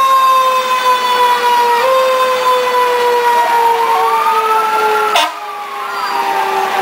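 Fire engine siren winding down in a long, slowly falling wail, pushed back up briefly about two seconds in. A second siren rises and falls in the middle, and the sound drops suddenly in loudness about five seconds in.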